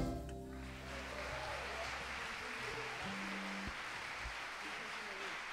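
Audience applause, steady and fairly quiet, just after a string ensemble cuts off its final chord; the low string notes ring away over the first two seconds.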